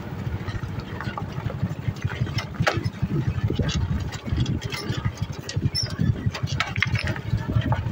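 Old motorcycle engine running with a fast, steady pulse, with irregular knocks and rattles as the bike goes over a rough stony track.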